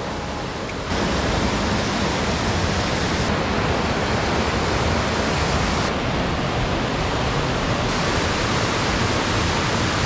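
Mountain stream rushing over small cascades between boulders: a steady rush of water that grows louder about a second in.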